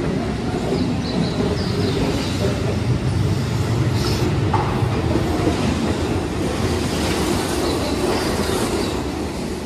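Keihan Electric Railway limited express train running along an underground station platform: a steady rumble of wheels on rail with rail-joint clatter, echoing in the enclosed station, and brief high wheel squeals now and then.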